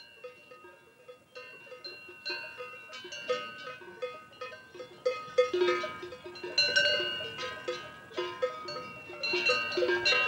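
Several cowbells on grazing cattle clanking irregularly at different pitches, each strike ringing on, the sound growing steadily louder.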